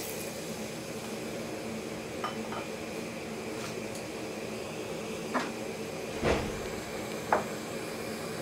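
A handful of light knocks and clinks of kitchen utensils against a cooking pot, the loudest about six seconds in, over a steady hiss.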